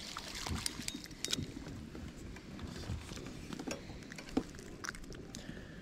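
Faint, scattered small clicks and rustling from hands handling a hooked panfish and the fishing line.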